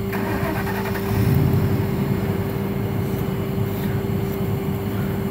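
Flatbed tow truck's engine idling steadily, with a steady high whine over the engine sound.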